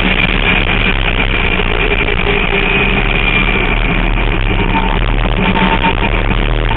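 Formula Mazda race car's rotary engine running at speed, a loud steady drone mixed with heavy wind noise.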